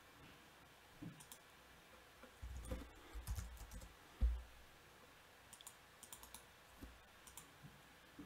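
Faint, scattered clicks of a computer mouse and keyboard, with a few dull low thumps around the middle.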